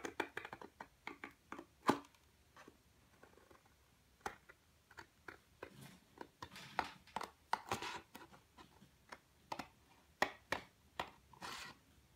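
Scissors snipping through pink card in a run of short, irregular cuts, with one louder snip about two seconds in.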